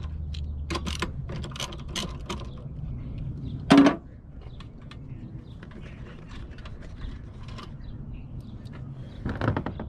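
Ratchet wrench clicking as it turns a 14 mm socket on a wiper arm pivot nut, a run of sharp clicks, then a single loud clunk about four seconds in. Lighter scattered handling clicks follow, with a knock near the end.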